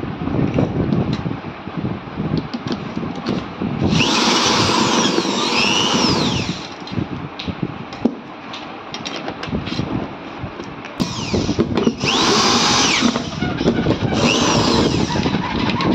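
Cordless drill driver driving screws through a steel mounting plate, run three times in bursts of about two seconds. Its motor whine rises and falls within each burst. Between the runs there are clicks and knocks as the parts are handled.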